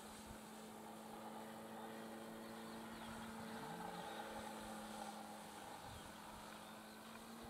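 Faint, steady hum of a Dynam WACO 1270mm RC biplane's electric motor and propeller in flight overhead, its pitch holding level.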